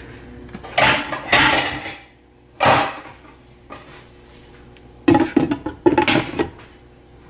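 Glass pot lid with a metal rim clattering and rattling with a short ringing as it is set down on a frying pan, about five to six seconds in. Three short noisy bursts come earlier, in the first three seconds.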